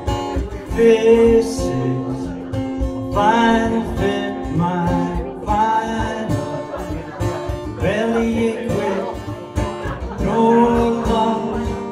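A man singing live with a strummed acoustic guitar, backed by a cajon tapped by hand.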